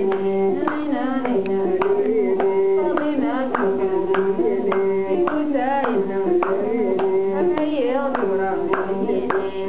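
A woman's voice singing a Tuareg song, accompanied by sharp rhythmic hand claps at about two a second.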